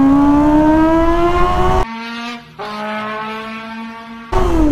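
Kawasaki ZX-25R's 250 cc inline-four engine revving up under way, with a high, horn-like note, which the rider likens to a party horn ('torotot'). Its pitch climbs steadily, then about two seconds in the sound turns abruptly quieter and muffled at a steady pitch. Near the end it returns loud with the pitch falling as the revs drop.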